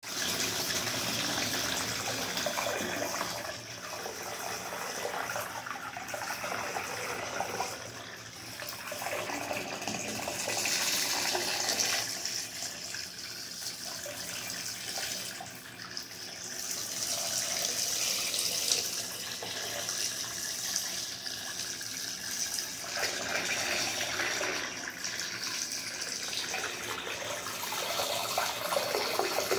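Running water splashing continuously, its loudness swelling and easing every few seconds.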